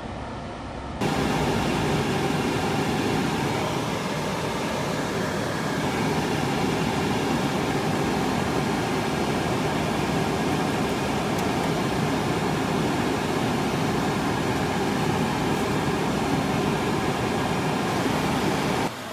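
A steady rushing noise, like air or a running fan, that starts abruptly about a second in and cuts off just before the end.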